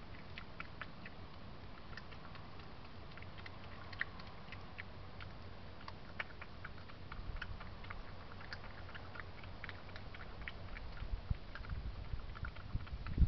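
European badger eating from a food dish: irregular small crunching clicks as it chews. A few low thumps come near the end.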